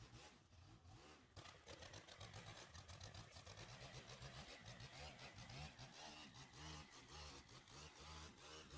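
Near silence, with a faint low hum.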